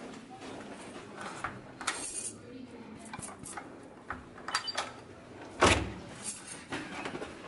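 Clicks and knocks of a hotel room door being unlocked and handled, with one loud, heavy thump a little past halfway.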